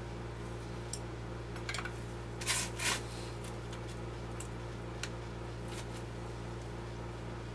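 Light clicks and two short scraping rustles, about two and a half and three seconds in, from small pistol parts being handled, over a steady electrical hum.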